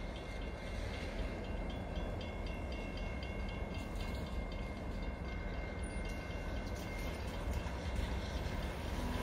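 Steady low rumble of a freight train's EMD diesel locomotives, an SD40 and a GP38, approaching in the distance, with a faint steady high-pitched whine over it.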